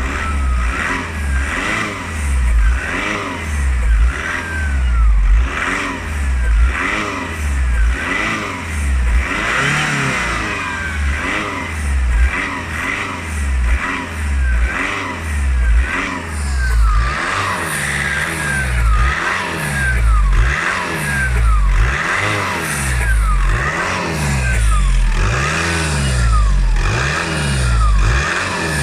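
Volkswagen Passat B6's 2.0 TDI four-cylinder diesel car with a rhythmic squeak: a short falling squeal repeats roughly once a second over a low, pulsing rumble of the running car.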